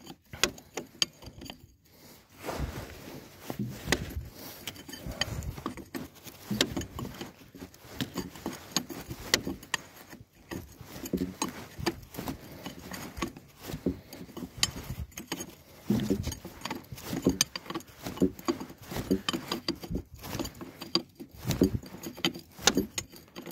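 Metal hand tools clinking and knocking irregularly as a spanner works the bolts of a trailer's brake chamber and disc brake axle.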